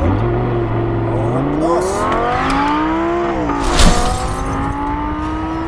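Sports car engine revving hard under acceleration, its pitch climbing steadily, dropping at a gear change about three and a half seconds in with a sharp crack, then climbing again.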